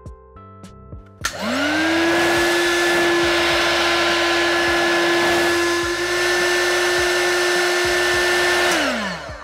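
Small electric heat gun switched on: its fan motor whines up to speed, then runs with a steady rush of hot air while shrinking clear heat-shrink tubing over a tiny drone receiver. Near the end it is switched off, and the whine falls away.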